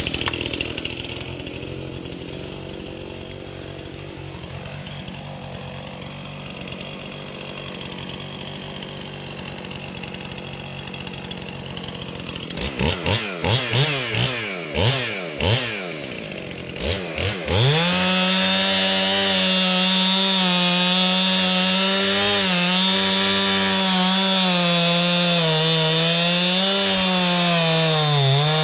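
Chainsaw idling, then revved several times in quick rising-and-falling blips, then held at full throttle from about two-thirds of the way in, its pitch sagging and recovering slightly as it cuts into a tree trunk while felling.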